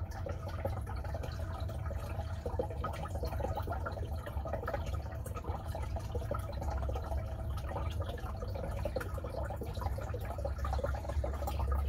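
Water trickling steadily in a turtle tank, with a low rumble underneath and many small crackles.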